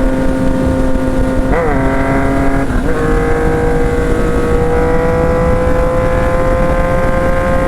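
Yamaha MT-09's three-cylinder engine running under way at steady revs, with a brief blip about one and a half seconds in and a short dip in pitch near three seconds, after which the revs climb slowly. A constant low rushing noise runs underneath.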